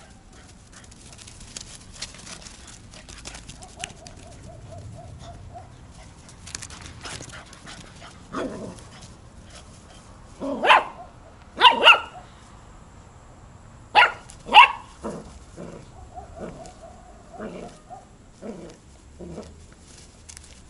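Puppy barking in play: short high yelping barks, the loudest in two quick pairs about 11 and 14 seconds in, with softer ones after and a thin whine earlier.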